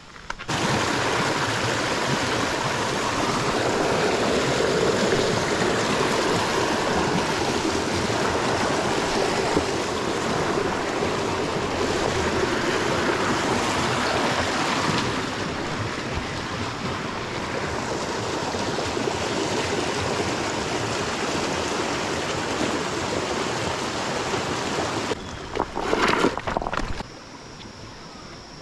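Creek water rushing: a steady, even noise that cuts in just after the start and cuts off sharply a few seconds before the end.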